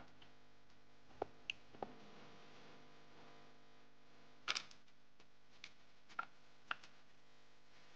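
Wooden chopsticks clicking against a plastic mixing bowl while tossing sliced fish with grated daikon and green onion. There are three quick ticks about a second in, then the loudest click a little past halfway, followed by a few more scattered taps.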